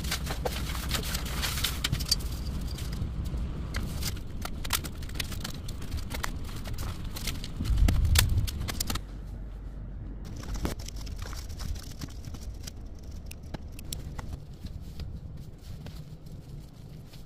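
Scattered clicks, scrapes and rustles of large paper and card sheets being handled and cut, over a low rumble. A loud low thump comes about eight seconds in, after which the sounds are quieter and sparser.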